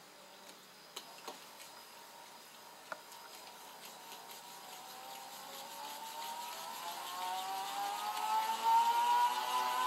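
NSD Spinner gyroscopic wrist exerciser whirring as its rotor is spun up by circling the wrist: a whine that rises steadily in pitch and grows louder over the last five seconds. A few light clicks about a second in and near three seconds.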